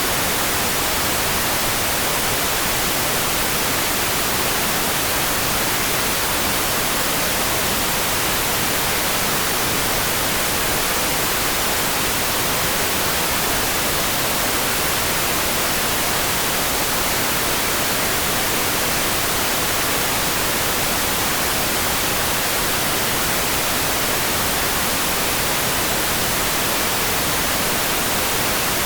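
Steady, unchanging hiss of rain noise for sleep. It is an even wash with no single drops or pauses standing out.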